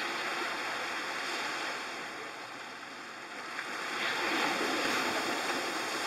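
Small waves breaking and washing up over sand and around boulders at the water's edge, swelling louder about four seconds in as a wave surges and splashes against a rock.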